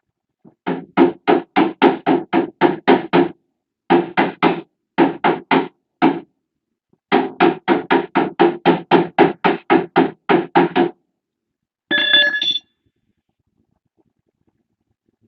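Hammer tapping steadily on a van's sheet-metal door panel to work out a dent, about four to five blows a second in several runs with short pauses. Near the end there is a brief metallic ring.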